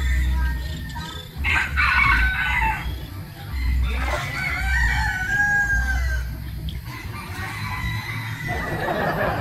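Roosters crowing several times, over bursts of low rumble.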